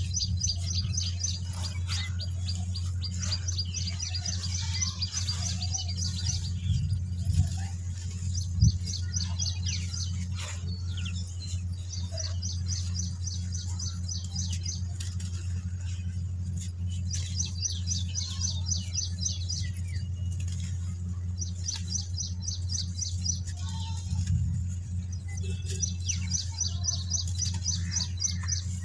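Dry red dirt clumps crumbling between the fingers, with powder and grit pattering onto a dirt pile and a couple of sharper crunches about seven and nine seconds in. A steady low hum runs underneath, and a bird repeats short bursts of fast chirping trills every few seconds.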